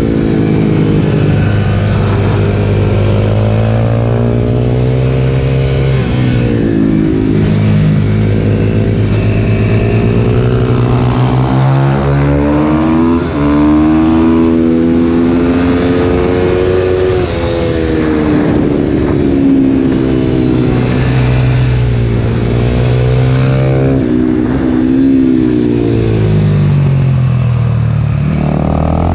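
Husqvarna FS450's 450 cc single-cylinder four-stroke engine running hard. Its revs climb and fall again and again as the bike accelerates down straights and slows into corners.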